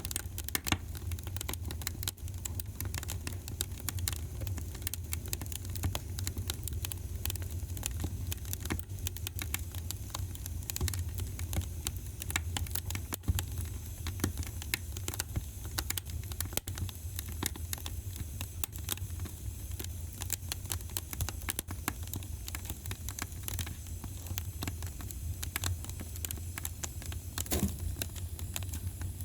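Wood fire crackling in a fireplace: a dense run of small pops and snaps over a steady low rumble, with a louder pop near the end.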